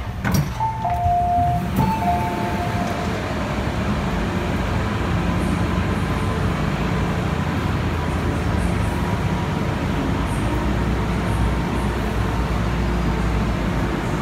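A two-tone electronic chime sounds twice in the first three seconds. It is followed by the steady low rumble and hum of an MTR M-Train standing at a station platform.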